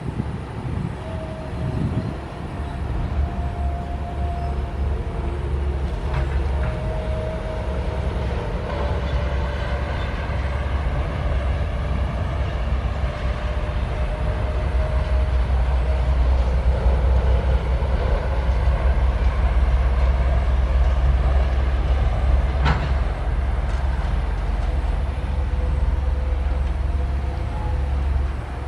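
SANY SY135F hydraulic excavator working, its diesel engine running with a heavy steady drone and a faint hydraulic whine that shifts in pitch as it digs and swings. A single sharp knock comes about 23 seconds in.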